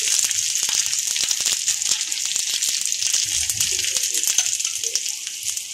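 Ghee sizzling and crackling under a stuffed potato paratha on a hot tawa: a steady high hiss dotted with many small pops, easing off near the end.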